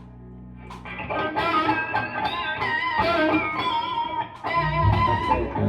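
Electric guitar played through an amp during a band's sound check: a run of plucked notes and a melody starting about a second in, with a deep low note coming in near the end.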